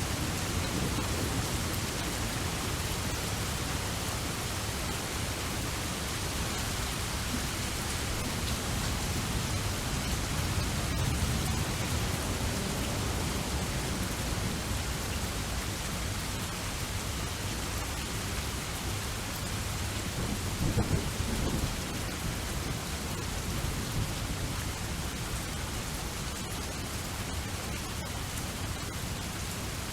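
Steady heavy rain with low rolling thunder, the rumble swelling around the middle and a short louder crack about two-thirds of the way through.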